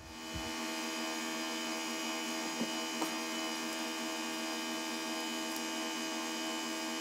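A steady electric hum made of many held tones, unchanging throughout, with a few faint light clicks.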